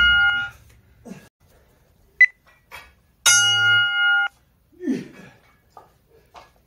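Electronic interval timer for circuit training sounding: a long buzzing tone fades out at the start, a short high beep comes a couple of seconds in, and about a second later another long buzzing tone sounds for about a second. This signals the switch to the next exercise station.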